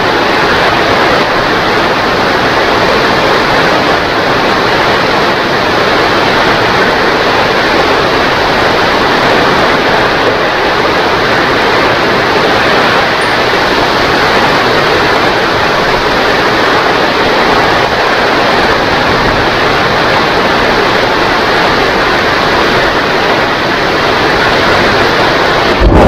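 Heavy rain falling in a steady, even downpour.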